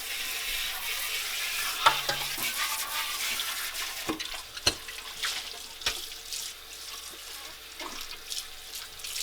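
Tap water running and splashing over plastic juicer parts being rinsed in a sink, with a few sharp knocks of the parts against the sink.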